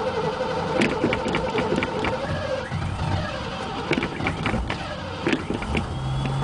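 1987 Ford F-350's 351 Windsor V8 with a Holley four-barrel being cranked on a cold start, with uneven pops as it tries to fire but does not yet catch; the engine is close to flooded.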